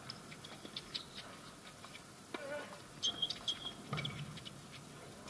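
A doubles tennis rally on a hard court: a serve, then returns and volleys, heard as sharp pops of racket strings on the ball and ball bounces. A few short high squeaks of shoes on the court come about three seconds in.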